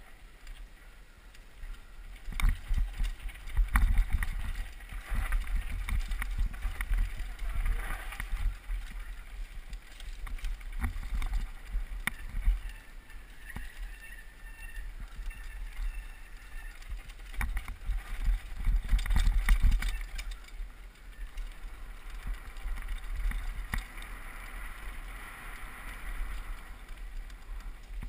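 Downhill mountain bike running fast over a rough dirt trail: wind buffeting the rider-mounted microphone, with rapid rattles and knocks from the bike over bumps. It is quieter for the first two seconds, then gets louder and busier as the bike picks up speed.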